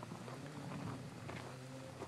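Snowmobile engine running steadily at low speed some way off, under crisp footsteps crunching in snow.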